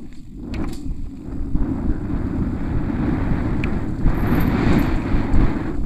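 Wind buffeting the microphone of a camera on a downhill mountain bike descending a dirt trail at speed, with the rumble of the knobby tyres and bike over the ground; a few sharp clicks early on and near the middle, and the noise grows louder about four seconds in.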